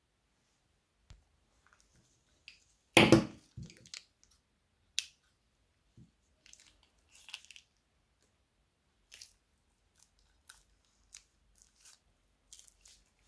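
Thin plastic bags crinkling and crackling in the hand as slime is squeezed out of them, in scattered short crackles, with one louder burst of crinkling handling noise about three seconds in.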